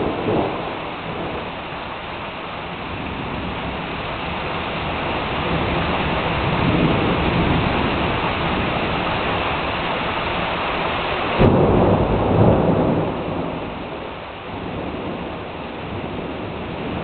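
Thunderstorm: steady rain falling, with thunder rumbling through it. About two-thirds of the way through, a sudden sharp thunderclap breaks out and rolls on for a second or two.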